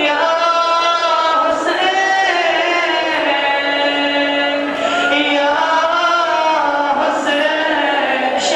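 Devotional chanting: slow melodic lines with long held notes that bend up and down, without breaks for speech.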